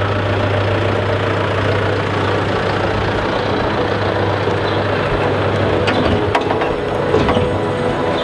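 A John Deere tractor's diesel engine running steadily with a low hum that drops away about six seconds in.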